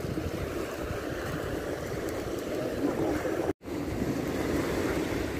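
Sea surf washing steadily over rocks, with wind buffeting the microphone. The sound cuts out for an instant about three and a half seconds in.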